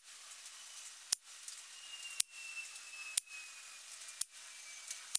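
Air Arms S400 air rifle shots, heard as short sharp cracks about once a second with faint hiss between: pellets fired in a group at a card target.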